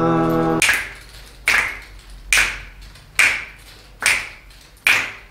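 A man's sung 'la' note ends just over half a second in. Then several people snap their fingers together in a steady beat, six snaps a little under a second apart, as part of a vocal warm-up.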